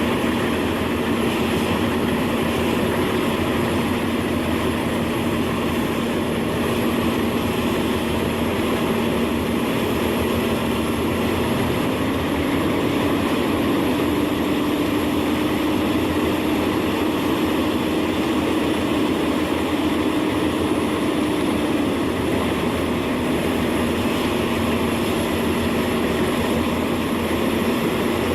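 Industrial wood chipper running with a steady engine and rotor drone; its hum rises slightly in pitch about twelve seconds in and drops back about ten seconds later.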